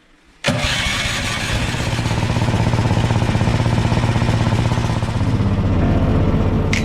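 An engine running loudly with a fast, even pulsing beat and a low steady hum, cutting in suddenly about half a second in.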